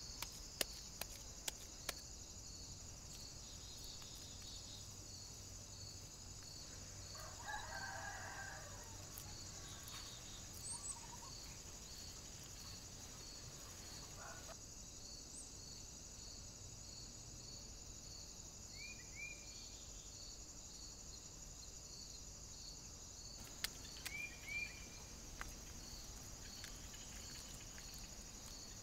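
A steady high insect chirring with a pulsing note about one and a half times a second. A rooster crows once about seven seconds in, and a few short bird chirps and sharp clicks come later.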